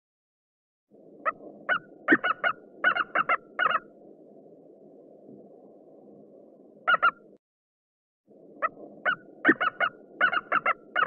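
Eagle calling in runs of short, high, staccato notes over a steady low background hiss: a run of about nine notes, a quick pair near the middle, then another run near the end.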